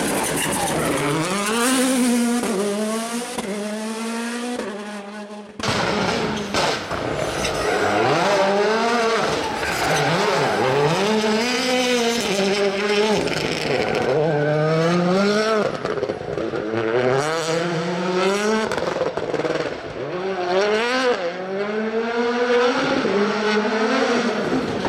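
Rally car engines accelerating hard through the gears, the pitch climbing and dropping back with each quick upshift. The sound breaks off abruptly about five and a half seconds in, and then more cars accelerate through their gears.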